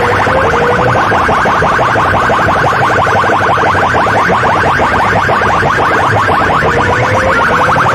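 Rapid, repeating electronic chirp tone played at full volume through a DJ sound rig's banks of horn loudspeakers as a competition sound effect. A short rising tone repeats about twice a second in the first second and comes back near the end.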